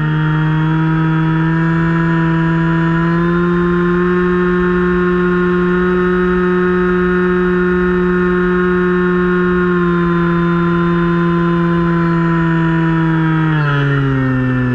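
Onboard electric motor and propeller of a Finwing Penguin RC plane whining steadily in flight, with low wind noise beneath. The pitch rises slightly in the first few seconds and drops near the end.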